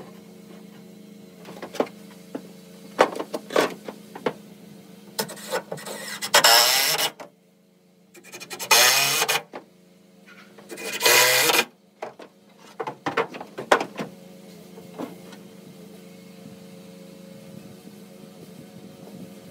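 Cordless drill driving screws into 2x4 lumber: three runs of a second or so each in the middle, the motor speed rising and falling as each screw goes in. Scattered knocks and taps come before and after.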